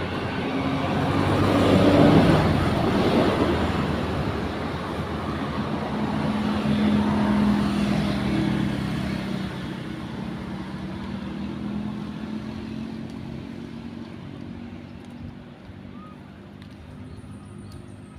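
A motor vehicle passing by: engine and road noise swell to a peak about two seconds in, a steady engine hum carries on a few seconds more, then it all fades away.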